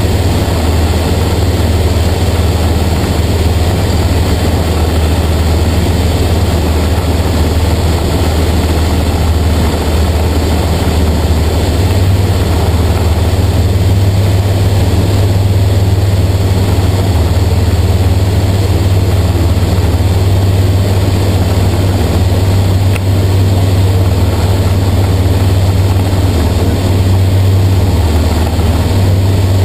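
TL-2000 Sting light aircraft's propeller engine running steadily in cruise flight, a loud, even drone heard from inside the cockpit.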